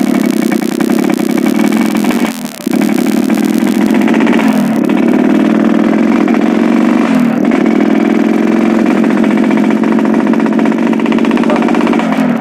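Yamaha RX King's two-stroke single-cylinder engine with a bobok (hollowed-out) exhaust, running hard while being ridden; the revs drop briefly and pick up again three times.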